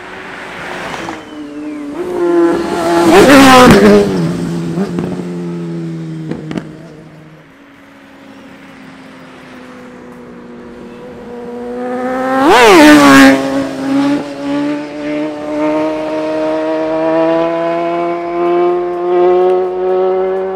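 Superbikes going past at speed, each engine note swelling and then dropping sharply in pitch as it passes, twice: about three seconds in and again about twelve seconds in. Between and after the passes, another engine runs steadily, its pitch slowly climbing.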